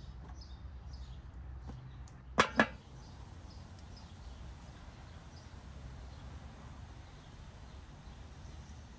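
Two sharp knocks close together about two and a half seconds in as kitchenware is handled, over a steady low outdoor rumble with a few faint bird chirps in the first second or two.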